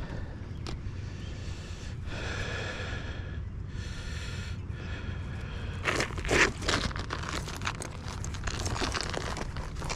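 Asphalt shingles scraping and crackling as they are worked loose and handled on a roof, over a steady low rumble of wind on the microphone. Two rustling scrapes come first, then a run of sharper crackles and scrapes from about the middle on.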